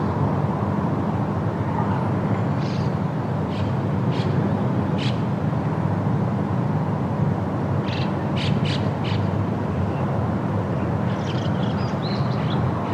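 Steady low roar of the Rhine Falls' heavy water pouring over the rocks. Short, high bird chirps come over it in a few brief clusters.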